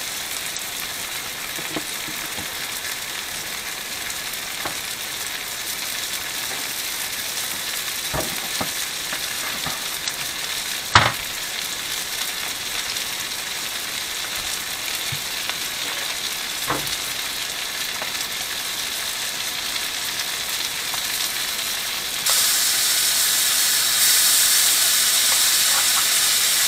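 Flour-dredged mushrooms frying in butter in an electric skillet: a steady sizzle that steps up louder about 22 seconds in and again a couple of seconds later, as the mushrooms are being turned. A single sharp click comes about halfway through.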